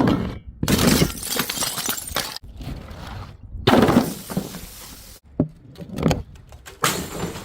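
Glass bottles smashing, about four separate crashes in quick succession, each trailing off in crunching and tinkling glass, with abrupt cuts between them.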